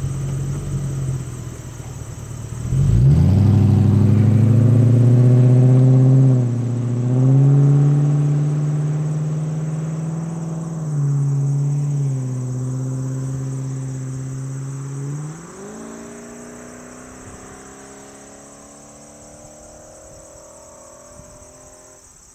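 Audi A6 4.2's V8 running through a muffler-deleted exhaust (mufflers cut out, front resonators kept). It idles, then pulls away at half throttle about three seconds in, its pitch climbing and dropping back at each upshift. It fades steadily as the car drives off into the distance.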